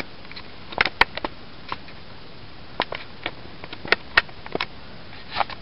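Toy packaging being handled: scattered light clicks and taps, about a dozen, with two sharper clicks about a second in and past four seconds in.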